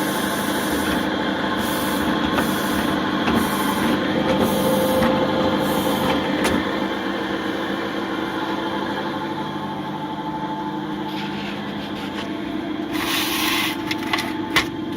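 Adler 21-1 industrial sewing machine running with a steady motor hum, its drive belt, which the owner calls quite worn, turning the machine. A few sharp clicks near the end.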